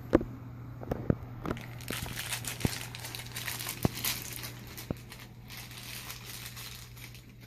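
Packaging crinkling and rustling in the hands, with scattered clicks, as a boxed collectible is opened; busiest in the middle and tapering off near the end.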